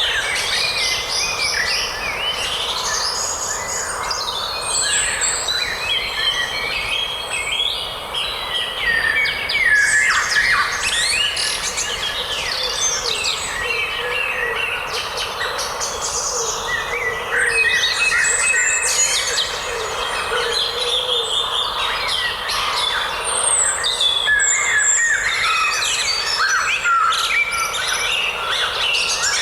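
A chorus of many birds singing and chirping at once, short rising and falling calls overlapping without a break.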